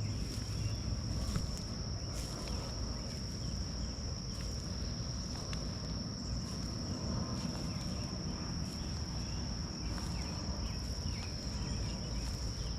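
Crickets trilling in one unbroken, steady high note, over a low rumble and a few faint scattered clicks.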